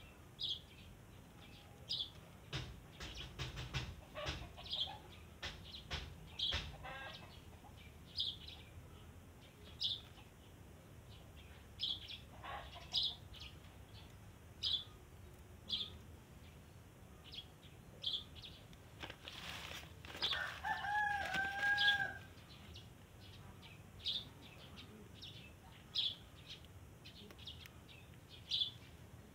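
Rural bird sounds: a small bird chirping short high notes about once a second, and a rooster crowing once about twenty seconds in. A few sharp clicks and rustles in the first several seconds.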